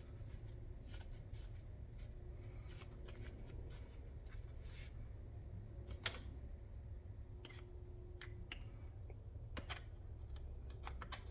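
Faint handling sounds of small items being fitted into a pouch: scattered light clicks and rustles, the sharpest click about six seconds in, over a steady low hum.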